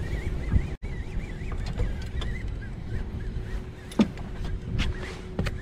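Wind rumbling on the microphone and water against a bass boat's hull, under a faint steady hum, while an angler reels in a hooked fish. A single sharp knock about four seconds in.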